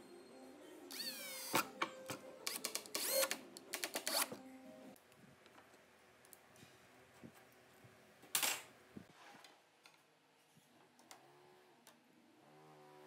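Cordless drill driving a wood screw into a pine board in several short bursts, the motor whirring up and down in pitch, during the first four seconds or so. Later comes a single sharp knock, and a faint whirring hum begins near the end.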